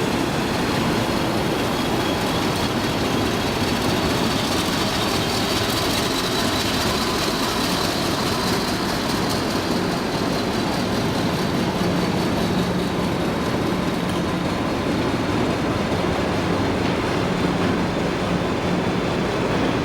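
Diesel-hauled train running steadily, with a dense rumble of engine and wheels, a faint high whine that rises a little and falls back, and a low engine hum that grows stronger about halfway through.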